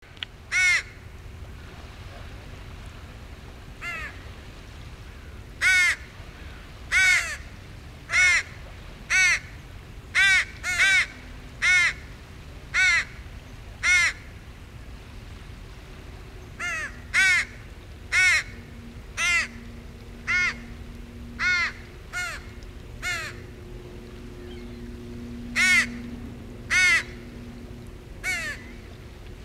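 Fledgling crow begging: short, repeated caws, each rising and falling in pitch, coming about once a second in bouts with a few brief pauses, as the young bird begs its parent to be fed.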